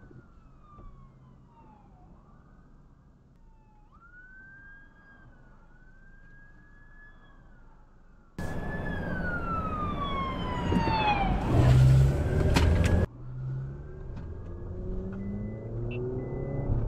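Police car sirens wailing at a distance, rising and falling. About eight seconds in, a siren suddenly becomes loud and close, sweeping down in pitch over a loud rush of noise, then drops back off sharply after about four seconds.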